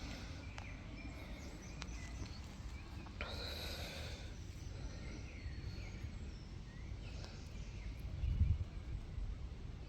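Wind buffeting the microphone outdoors as a steady low rumble, with a stronger gust near the end. Birds call faintly, with one short harsh call about three seconds in.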